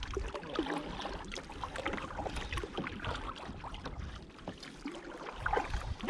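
Water lapping and slapping irregularly against a kayak's hull, with a low rumble of wind on the microphone.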